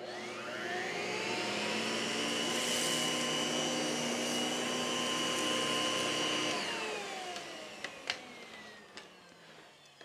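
Miele upright vacuum cleaner switched on: its motor spins up over about a second, runs steadily while the vacuum is pushed across carpet, then is switched off about six and a half seconds in and winds down.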